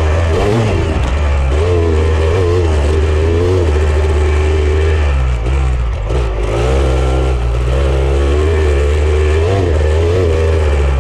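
Off-road vehicle engine running loudly, its pitch wavering up and down as the throttle changes, easing off briefly about halfway through.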